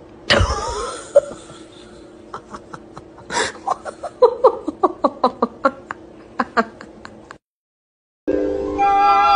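A sudden loud burst just after the start, then a person laughing in a quick run of short bursts. The sound cuts out briefly, and light music starts near the end.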